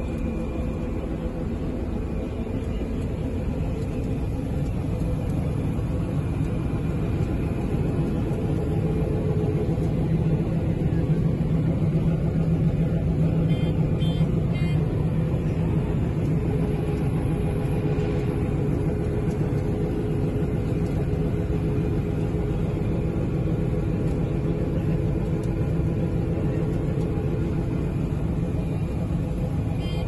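Combine harvester's engine and threshing machinery running with a steady drone, heard from inside the cab. A few faint beeps sound about halfway through.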